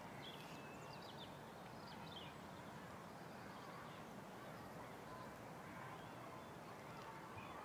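Very quiet background hiss with a few faint, high chirps of distant birds, in the first second or so and again near the end.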